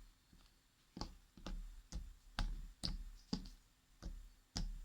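Homemade wood-glue slime being squeezed and worked in the hands, giving sticky clicks and smacks about twice a second, each with a soft thud.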